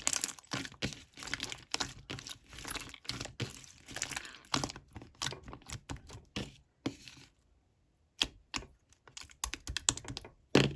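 Clear slime being squished and pressed by hand, giving quick runs of small wet clicks and pops. After about seven seconds the clicking thins to a few separate pops, with one louder pop near the end.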